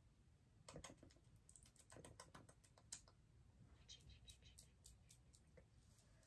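Near silence with a scatter of faint, light clicks and taps, busiest in the first half.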